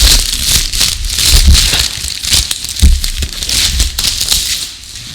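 Parcel packaging rustling and crinkling as it is pulled open by hand, with low thumps from handling the package.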